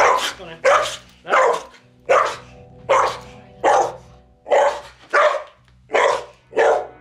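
Muzzled collie barking over and over, about ten barks at an even pace of a little more than one a second. It is aggressive barking at a stranger who has come into her home.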